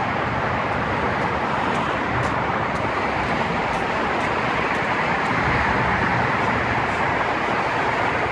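Steady road traffic noise: a constant wash of passing cars and tyres with no single vehicle standing out.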